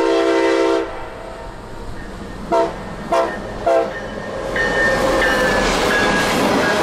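CSX diesel freight locomotive's air horn: a long blast cuts off just under a second in, followed by three short blasts about half a second apart. From about four and a half seconds the train's rumble grows loud as the locomotive runs past.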